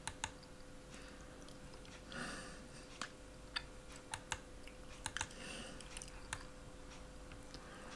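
Scattered sharp clicks of a computer mouse and keyboard at irregular intervals, over a faint steady hum.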